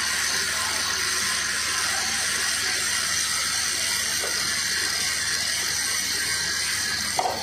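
Stick welding with a 316 stainless steel electrode on stainless pipe: the arc crackles and hisses steadily, then cuts off suddenly near the end.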